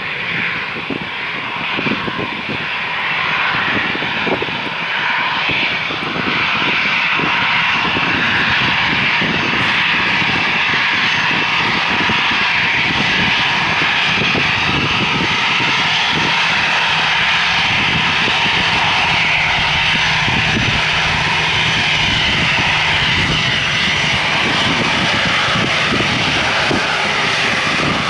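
Airbus A321-211's CFM56 turbofan engines running at taxi power with a steady whine over a broad rushing noise. The sound grows louder over the first several seconds as the jet taxis closer, then holds steady.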